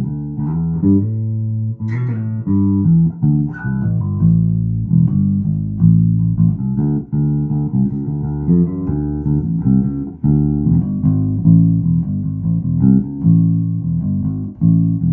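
Birdsong Cortobass short-scale electric bass played solo on its bridge pickup alone: a steady run of plucked notes and bass lines.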